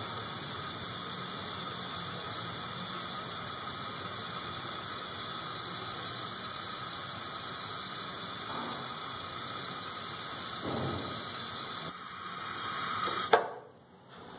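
Gas stove burner flame hissing steadily. Near the end a sharp click, and the hiss cuts off as the burner is shut off.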